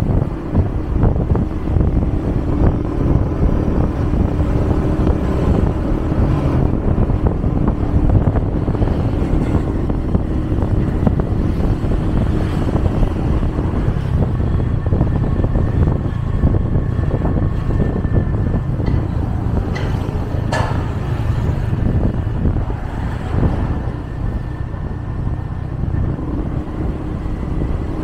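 Steady road-traffic noise: vehicle engines running and tyres on the road, with a short sharp sound about twenty seconds in.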